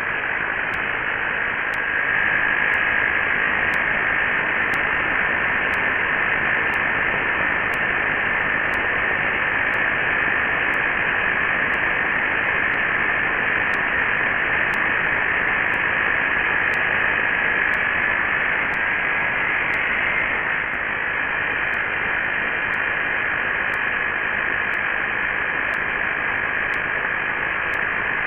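Two 12-volt air compressors running together in parallel, a loud steady mechanical rattle with a high whine over it. About twenty seconds in, the whine drops slightly in pitch and the level dips a little.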